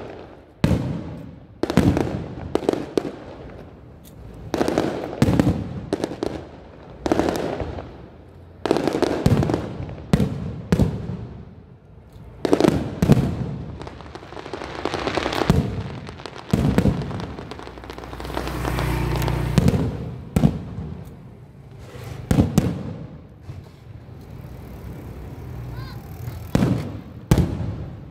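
Aerial firework shells bursting in a rapid, irregular series, one bang about every second, each trailing off in echo, with a longer, deeper rumble about two-thirds of the way through.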